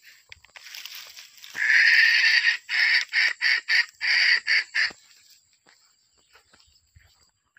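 Jungle fowl call: one long crowing note, then about six short notes in quick succession.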